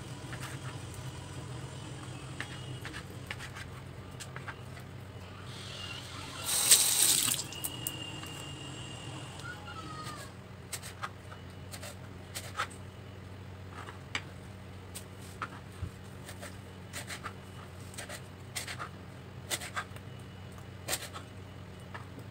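Knife clicking and tapping on a plastic cutting board as the ridged skin is trimmed off a luffa gourd, in sharp irregular strokes through the second half. About six seconds in there is a brief loud rush like water running from a tap, and a low steady hum runs underneath.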